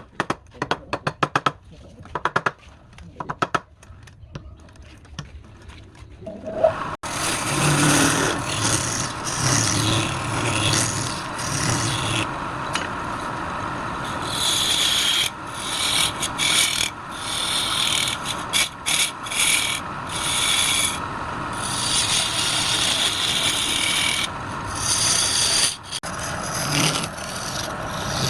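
Wood being worked on a lathe: quick repeated rasping strokes of a tool against the wood, then from about seven seconds in a continuous scraping and rubbing against the spinning workpiece, broken by brief pauses.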